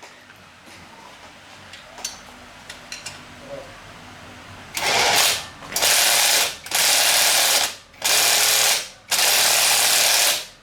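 A mechanical power tool run in five bursts of about a second each, with short pauses between, starting about halfway through. A few light clicks of handling come before it.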